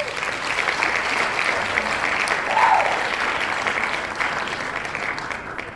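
Audience applause: dense clapping that comes in suddenly and fades away at the end.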